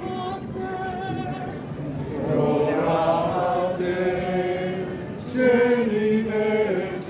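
A group of voices singing a slow hymn-like chant in long held notes, swelling louder about two seconds in and again about five and a half seconds in.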